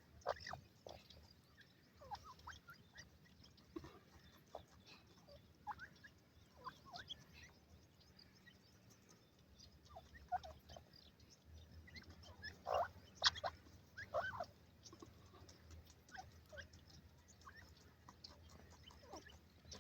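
Birds calling: many short, separate calls scattered throughout, loudest in a cluster about two thirds of the way through, over a faint low rumble.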